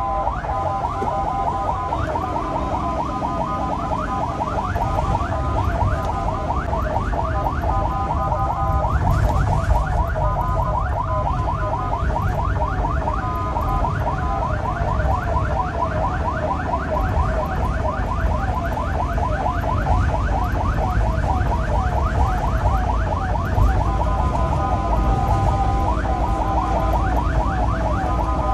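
Ambulance siren in a fast yelp, a rising sweep repeated several times a second, with steadier held tones near the start and end, over the low rumble of the engine and road heard from inside the cab.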